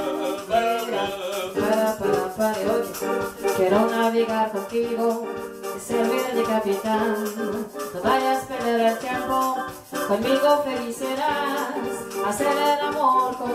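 A woman singing a ballad melody into a microphone over an electronic keyboard's Latin bossa-style backing, with chords and a steady shaker rhythm.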